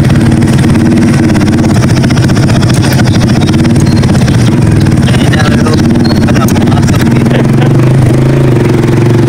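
Motorcycle engine running steadily while being ridden, loud and close.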